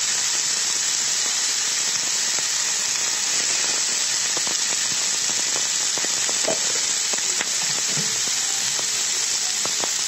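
Cut taro stolons sizzling steadily in hot oil in a non-stick frying pan, with a few faint ticks and pops.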